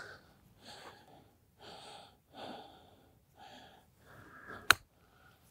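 A golf club striking the ball once, a single sharp crack about four and a half seconds in, on a punch-out recovery shot. Before it, soft breathy rustles come roughly once a second.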